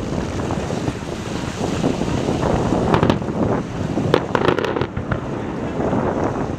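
Fireworks display: shells launching and bursting, with a cluster of sharp cracks and bangs about three seconds in and again between four and five seconds in. Steady wind noise on the microphone runs underneath.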